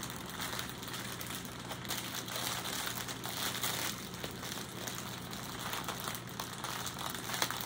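Small clear plastic bags of diamond-painting drills crinkling continuously as a rolled bundle of them is unrolled and handled, over a faint steady low hum.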